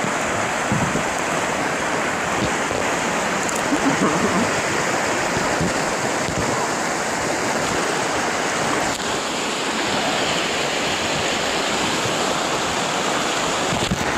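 River rapids: white water rushing steadily over rocks.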